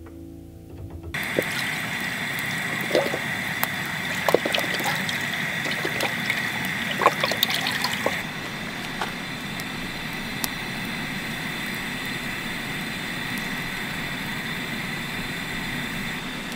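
Chicken stock glugging out of a carton into a cast-iron Dutch oven over the steady hiss of a propane camp-stove burner. The pouring stops about eight seconds in, and the burner hiss carries on.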